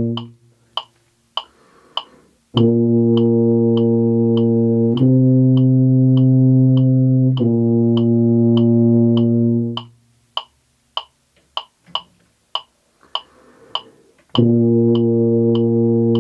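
Tuba playing long sustained whole notes over a steady metronome click, four clicks to a note. Three notes follow in a row, the middle one a step higher. A breath is drawn in each rest, and a new note starts near the end.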